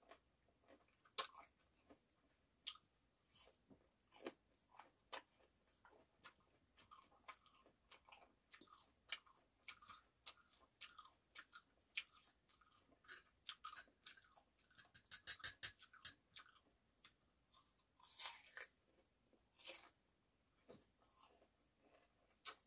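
Close-miked mouth sounds of someone chewing cubes of peeled persimmon: soft irregular crunches and wet clicks. A quick run of clicks comes about two-thirds of the way in, and a few louder ones follow.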